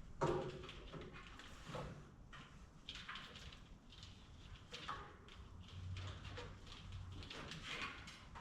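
Scattered hand-work noises on a truck: a sharp knock just after the start, then intermittent clicks, rustles and taps, with a brief low hum about six seconds in.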